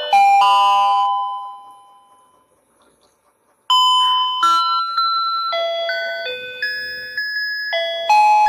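Electronic tune of simple beeping notes from a toy fishing game's music chip. A ringing note at the start fades out over about two seconds, there is a short silence, and then the beeping melody starts again.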